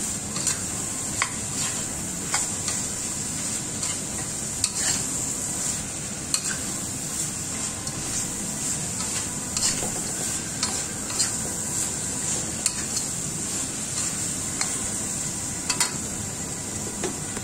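Sambal of pea eggplants and anchovies sizzling in oil in a wok, stir-fried with a metal spatula that scrapes and knocks against the pan about every second.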